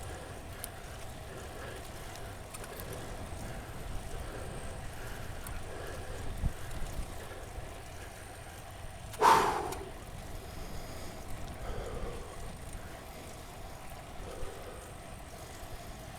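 Steady road and wind noise of a bicycle ride, with a cyclist's hard breathing from sprinting coming as soft swells every couple of seconds. A short, loud burst about nine seconds in.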